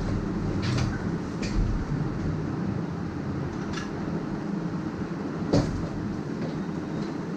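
A steady low rumble with a hum, and a few light clicks and knocks of clothes hangers being hung on a curtain rail; the sharpest knock comes about five and a half seconds in.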